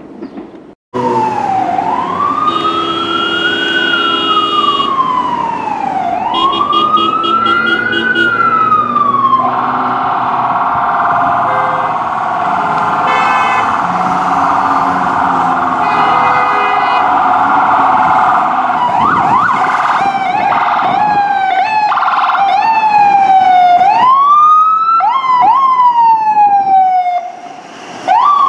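Emergency vehicle siren going through slow rising-and-falling wails, switching to a fast warble about ten seconds in and back to quicker sweeps later, with several blasts of a horn over it.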